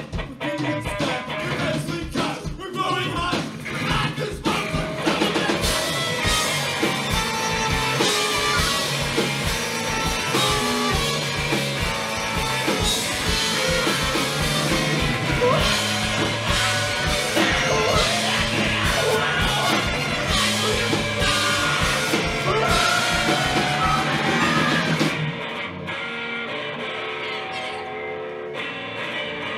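A live rock band with horns playing loud: drums, bass and electric guitar under trumpet and saxophone. About 25 seconds in the full band stops, leaving a quieter guitar sound.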